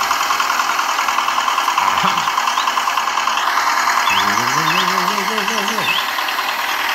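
Small single-cylinder walking-tractor engine chugging steadily in rapid, even beats. About four seconds in, a person's voice slides upward in a drawn-out call.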